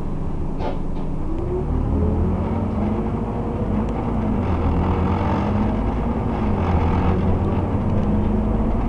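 Scania OmniCity bus's diesel engine and transmission heard from inside the passenger saloon, pulling away with a rising whine about a second and a half in, then running steadily under load. A couple of short knocks from the bodywork come just before it pulls away.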